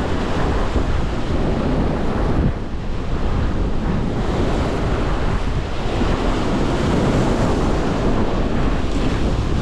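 Strong wind buffeting the microphone over rough lake water, with waves splashing steadily and a heavy low rumble.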